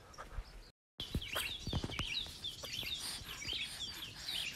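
Birds chirping over and over in short high calls, which start after a brief dropout about a second in. Under them, soft rustles and taps of shredded cabbage being tossed by hand in a plastic basin.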